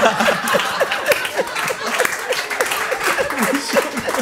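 A group of people laughing hard, many short overlapping bursts of laughter, with scattered clapping.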